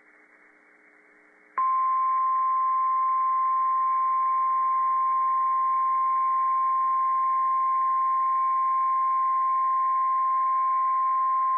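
NOAA Weather Radio's 1050 Hz warning alarm tone. It is one steady tone that starts sharply about a second and a half in and holds for about ten seconds before cutting off. It signals that a warning broadcast is about to be read.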